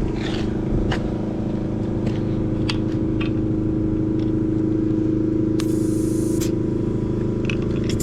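Steady motor hum while a semi truck tire is being aired up, with a few small clicks and a short hiss of air a little over five seconds in as an air gauge is pressed on the valve stem; the tire is at only about 40 psi of the 105 it needs.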